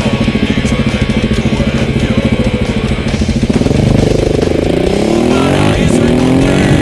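KTM 690 Enduro R single-cylinder engine chugging at low revs with a fast even pulse, then about three and a half seconds in it revs up with a rising pitch as the bike accelerates away.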